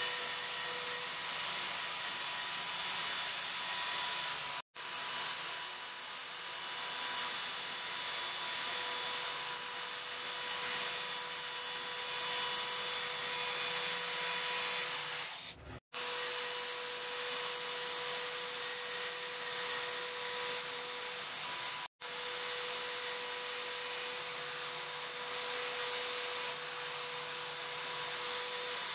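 Milwaukee portable band saw running and cutting through steel plate: a steady motor whine over the hiss of the blade. The sound drops out abruptly three times and resumes.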